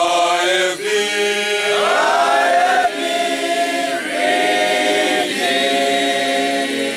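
A group of people singing together without accompaniment, holding long notes and moving to a new note about every second.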